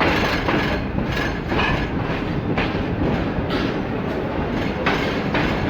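Passenger train coaches rolling past with a steady loud rumble and repeated clacks of the wheels over the rail joints.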